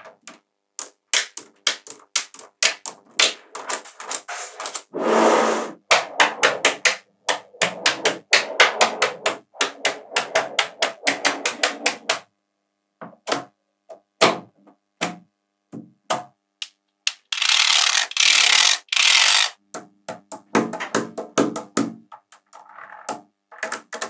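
Small magnetic balls clicking against each other and against the table as strips and sheets of them are pressed and laid into place, in quick irregular runs of sharp clicks with brief silent gaps. There are two longer stretches of continuous clattering noise, about one and two seconds long.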